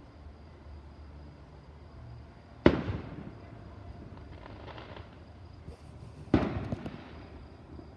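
Two aerial firework shells bursting, each a sharp bang followed by a fading, echoing rumble: one about two and a half seconds in, the next about three and a half seconds later.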